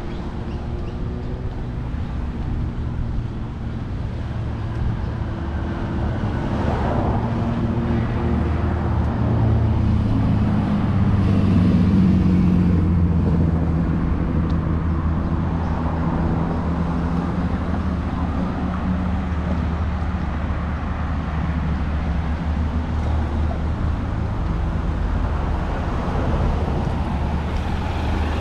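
Street traffic: motor vehicle engines running close by, with a steady low hum that grows loudest about halfway through.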